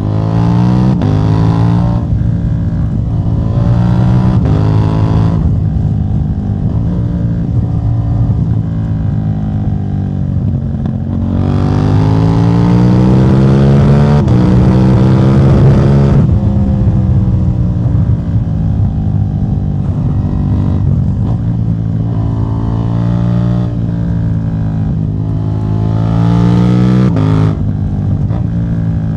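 KTM 790 Duke's parallel-twin engine running through a de-catted exhaust (catalytic converter removed), its revs rising and falling several times. It climbs about a second in, climbs again around ten to twelve seconds and holds high for a few seconds before easing off, then rises once more and drops sharply near the end.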